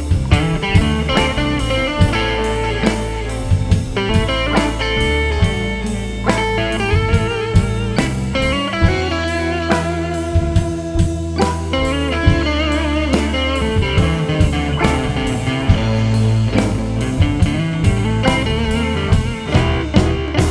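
Blues band playing an instrumental break without vocals: an electric guitar plays lead lines with bent, wavering notes over a steady bass line and a drum kit keeping a beat of about two hits a second.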